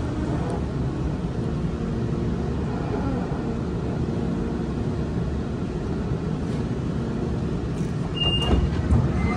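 Cabin noise of a Sydney double-deck electric train running slowly into a station: a steady low rumble. Near the end come a few clunks and a short high beep.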